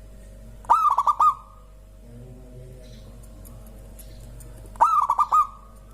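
Zebra dove (perkutut) cooing: two calls about four seconds apart, each a longer first note followed by a quick run of four short notes. A faint steady hum lies underneath.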